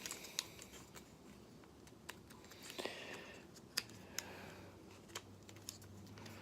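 Scattered small plastic clicks and a short scrape about three seconds in, from a plastic Transformers figure being handled and its parts moved.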